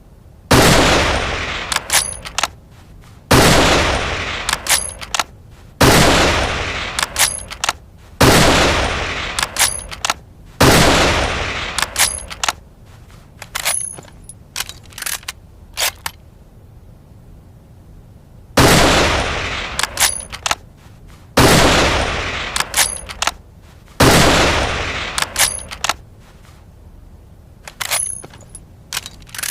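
Mauser Gewehr 98 bolt-action rifle firing eight single shots, each with a long echoing tail and then the quick clicks of the bolt being worked for the next round. The shots come about two and a half seconds apart, with a longer pause holding a few more clicks after the fifth.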